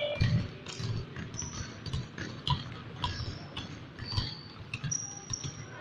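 Basketball bounced on an indoor sports-hall floor, about two bounces a second, with short high squeaks of sneakers on the court.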